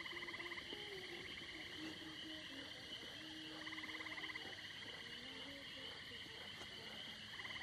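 Night chorus of insects and frogs: a steady high chirring, a pulsing trill that comes three times, and low short hooting calls.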